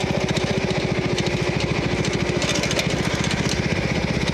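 Riding lawn mower's small engine running steadily, its firing pulses fast and even, with scattered sharp clicks and rattles over it.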